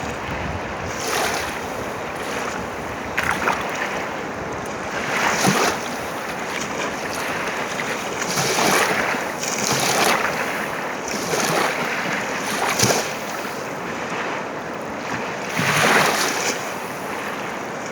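Kali Gandaki river water rushing, with a steady hiss that swells in uneven surges every second or two.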